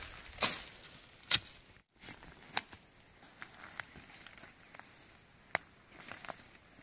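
Short, sharp cutting strokes of a hand blade slashing through grass and brush, about five of them spread out, with foliage rustling between. A thin, steady high insect trill runs underneath.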